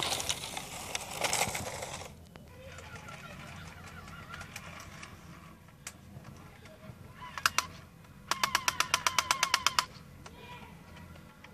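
Lego RC truck's electric motor and plastic gears whirring as it drives past close by, dropping away after about two seconds. Later a burst of rapid, even clicking, about ten clicks a second for a second and a half.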